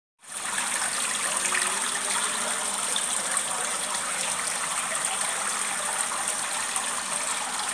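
Decorative water-curtain fountain: a sheet of water falling continuously into its basin, a steady splashing rush of water.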